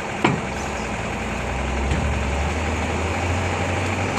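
A heavy vehicle engine idling steadily, its low hum growing a little stronger about half a second in. A sharp knock sounds about a quarter second in, and a smaller one near two seconds.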